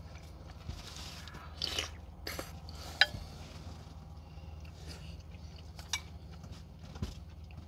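A person chewing and biting food close to the microphone, with a few sharp wet mouth clicks, over a low steady hum.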